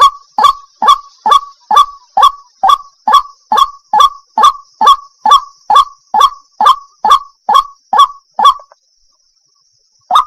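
Waterhen calling, a long series of short, loud, identical notes at a steady rhythm of a little over two a second. The calling stops about two-thirds of the way through and starts again right at the end. A faint steady high hiss runs beneath.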